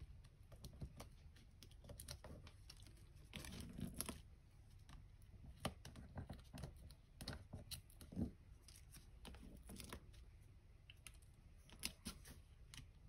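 Faint paper-crafting handling: foam adhesive dimensionals peeled off their backing sheet, cardstock rustling, and scattered light clicks and taps on the work surface.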